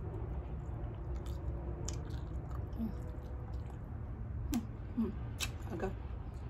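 Close-up sounds of a person chewing food, with short wet mouth and lip smacks, several in quick succession about four and a half to five and a half seconds in, over a steady low hum.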